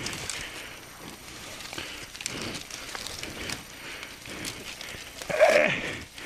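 Dead tree branch dragged by hand over a dirt trail strewn with dry leaves: twigs scraping and crackling along the ground, with footsteps. A loud short grunt of effort about five and a half seconds in.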